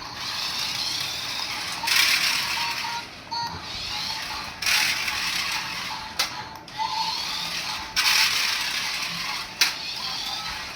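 A small electric toy motor whirring through plastic gears in repeated bursts of about two seconds, each starting and stopping sharply, with a few short clicks between.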